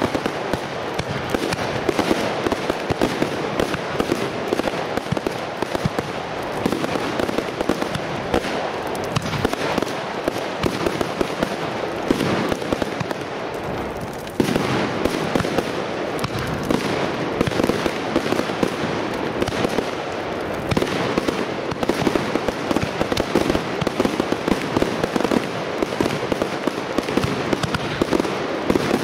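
Aerial fireworks going off in quick succession: a dense run of bangs and crackling from bursting shells and rising tails. A brief lull just before halfway ends in a sudden louder volley.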